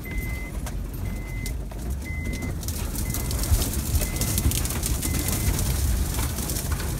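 Inside an SUV's cabin while it drives through tall grass: a steady engine and tyre rumble, with a dashboard warning chime beeping about once a second, six times. From a few seconds in, grass and brush swish and scrape against the body and windshield, with a scatter of ticks and snaps.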